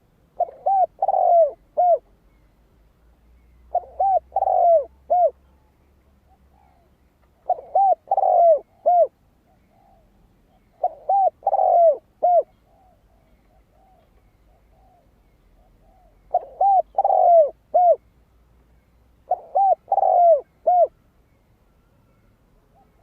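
Spotted dove cooing, six phrases a few seconds apart. Each phrase is a quick run of three or four coos about a second and a half long. This is the male's crowing call, used as a decoy to lure wild doves.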